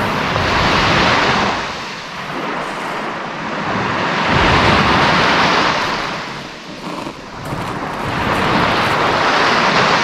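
Sea of Azov surf: waves breaking and washing up the beach, swelling and fading in three surges about four seconds apart, near the start, in the middle and near the end.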